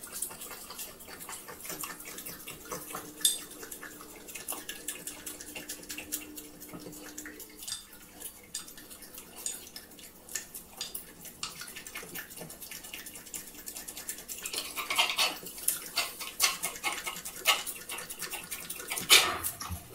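A German Shepherd eating cake off a plate: wet licking and chewing, with the plate clicking and scraping against the floor. The sounds grow louder and busier in the last few seconds.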